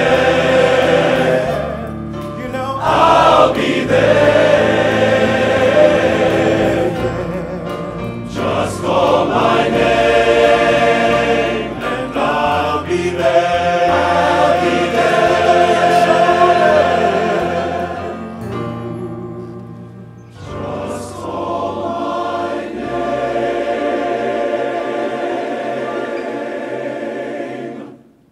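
A large men's chorus singing in harmony, with a soloist singing out in front of it. The singing stops abruptly near the end.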